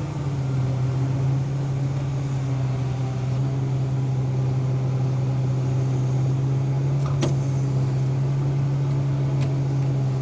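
Tractor engine running steadily under load while towing an air seeder, a constant drone. A short sharp click comes about seven seconds in, and a fainter one near the end.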